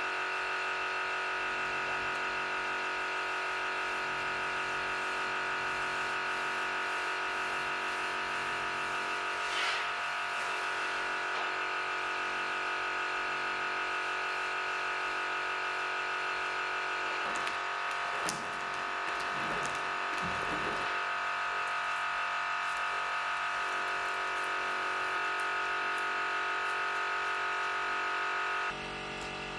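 Small electric motor running with a steady hum, with a few faint handling clicks about two-thirds of the way through. Its level drops slightly near the end.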